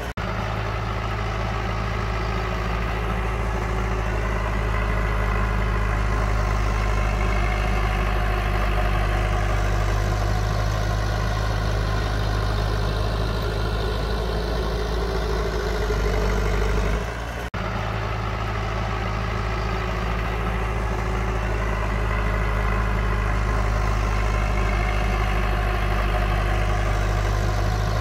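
Heavy diesel engine of earth-moving machinery running steadily, with a brief drop-out about two-thirds of the way through.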